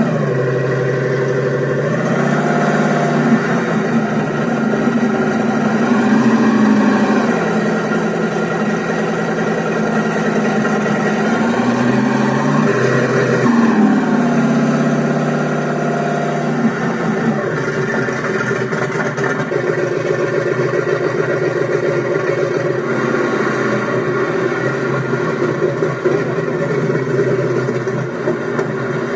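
Beier SFR-1-HL sound module in a Tamiya RC Sherman tank playing a simulated tank engine through its speaker: running steadily and revving up and back down several times as the transmitter stick is moved.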